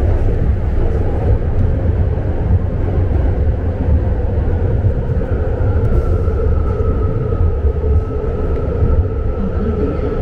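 A BART Fleet of the Future train car in motion, heard from inside the car: a loud, steady rumble of wheels on track. A thin whine grows clearer and edges up in pitch about halfway through, then holds steady.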